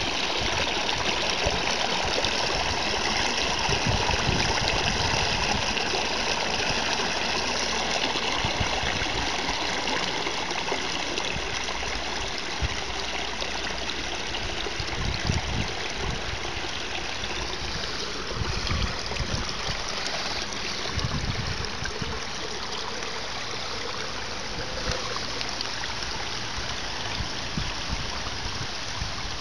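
Floodwater rushing and gurgling down a freshly unclogged storm-drain inlet in a steady stream, easing slightly after the first several seconds. A few brief low bumps come through around the middle.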